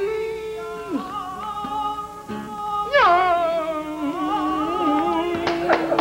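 A man singing long, wavering notes in a flamenco style, his voice sliding down between phrases, with several sharp clicks near the end.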